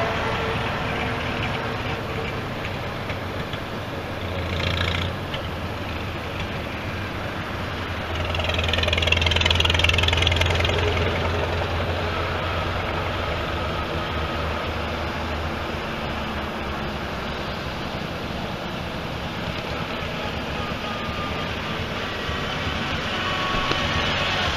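Engines of vintage farm tractors running as they drive past one after another, a steady low chugging hum. One swells louder for a few seconds about a third of the way in, and another grows louder near the end as it comes close.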